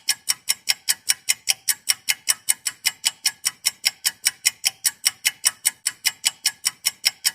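Fast, even ticking like a clock or timer effect, about five crisp ticks a second, held at a steady pace.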